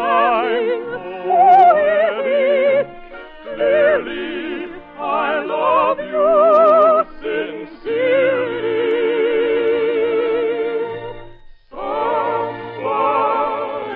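Operetta singing with wide vibrato over orchestral accompaniment, in sung phrases with short breaks between them. A long held note runs from about eight seconds in, then a brief pause before the singing starts again.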